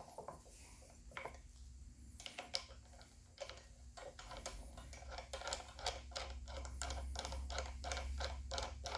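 Metal hand-tool clicking, likely a ratchet wrench worked in quick strokes on the front fork's clamp bolts: scattered clicks at first, then an even run of about four clicks a second from about four seconds in.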